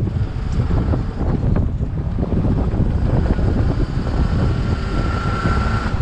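Fishing boat's engine running steadily, with wind on the microphone and scattered knocks. A faint high whine joins in after about three seconds.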